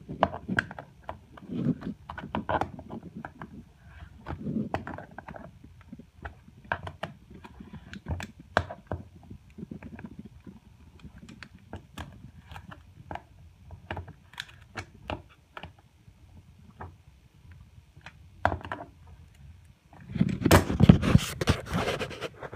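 Steel tongue-and-groove pliers clicking and scraping against the bolt heads of a plastic shower-drain clamping ring as the bolts are tightened down over a rubber pan liner, with irregular small knocks throughout. A louder, longer scuffing noise comes about two seconds before the end.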